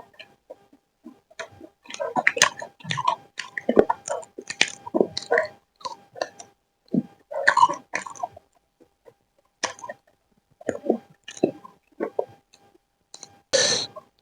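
A person chewing and eating close to the microphone: an uneven run of short wet clicks and smacks in bursts, with a louder burst near the end.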